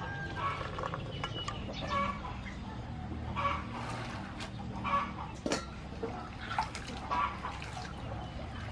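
Chickens clucking, a short call every second or so. Soaked black-eyed peas rattle as they are poured into a steel bowl and rubbed by hand, with one sharp clink about halfway through.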